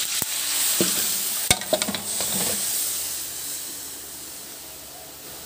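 Oil sizzling in a metal wok with browned garlic and onion bits, stirred, with a few sharp clinks of a metal utensil against the pan in the first two seconds. The sizzle fades over the last couple of seconds.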